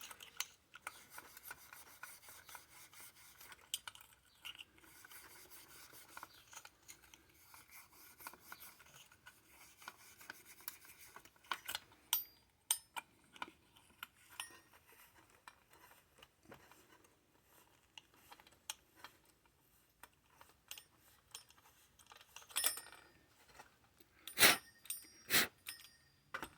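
Fine 0000 steel wool rubbing and scrubbing on a small metal toy cymbal, a light scratchy rasp. A few sharp metallic clinks come near the end.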